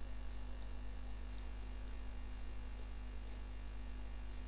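Steady electrical mains hum at a low pitch with its overtones, picked up by the recording microphone, and a few faint ticks.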